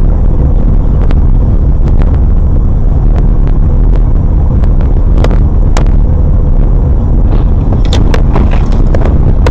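Car driving, heard through a dash camera inside the cabin: a loud, steady low rumble of engine and road noise, with scattered sharp clicks and knocks that come thicker about eight seconds in.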